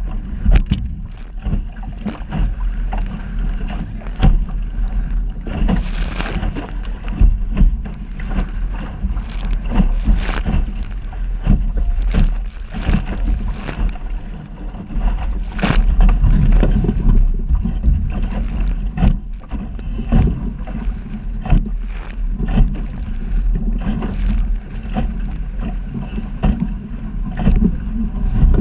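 Wind buffeting the microphone of a camera mounted on a small sailing dinghy, a steady heavy rumble, with waves slapping and knocking against the hull many times as it sails through choppy water.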